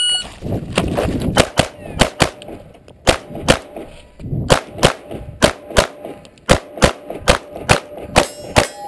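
Shot-timer start beep, then a 9mm Glock pistol firing quickly, mostly in double-taps, with more than a dozen shots starting about a second and a half in.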